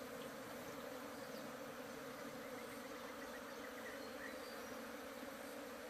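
Honeybees buzzing in a faint, steady hum around a hive box as the colony is left to crawl onto the comb by itself.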